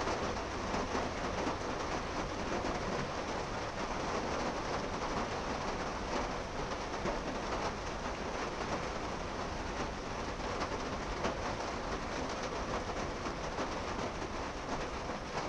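Steady outdoor background noise: an even, constant rushing hiss and rumble with no distinct calls, steps or other events.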